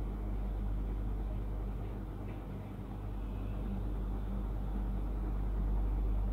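Steady low background hum and rumble with no distinct events.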